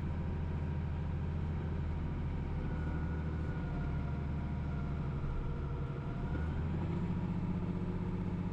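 International 1586 tractor's turbocharged six-cylinder diesel running steadily under the load of a fully loaded planter, with a faint whine over the drone in the middle.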